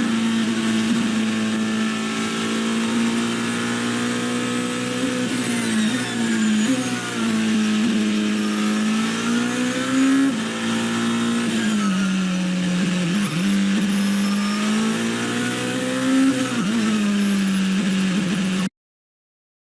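An engine running steadily, its pitch rising and falling a little several times, then cutting off suddenly near the end.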